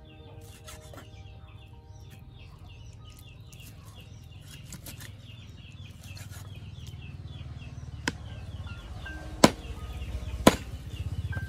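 Meat cleaver chopping raw meat on a thick wooden chopping block, with three sharp chops about a second apart in the second half.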